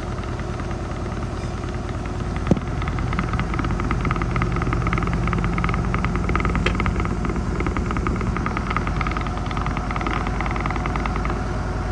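Washing machine on its final spin cycle: a steady low hum from the spinning drum with a fast, continuous rattle as the machine shakes. One sharp knock about two and a half seconds in.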